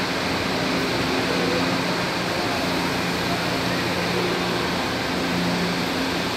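Metro train standing at the platform with its doors open, its air conditioning and onboard equipment giving a steady hiss with a faint low hum.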